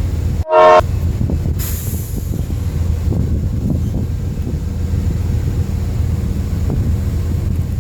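Train rolling by with a steady low rumble and faint knocks. About half a second in comes a very short, loud pitched blast, and soon after a brief high hiss.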